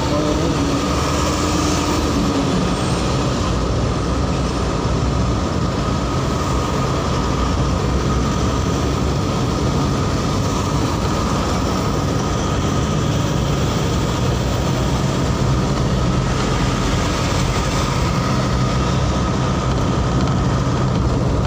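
Steady road noise from a vehicle moving in traffic: a low engine hum under an even rush of wind and tyre noise, with a faint steady whine, unbroken throughout.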